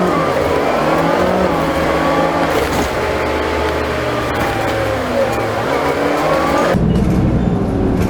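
City bus heard from inside the passenger cabin while driving: the engine and drivetrain run with a whine that rises and falls in pitch as the bus speeds up and changes gear. About seven seconds in, the sound changes abruptly to a deeper, duller rumble.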